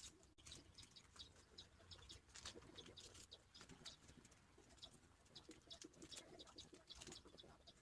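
Faint bird chirping: many short, high calls in quick succession.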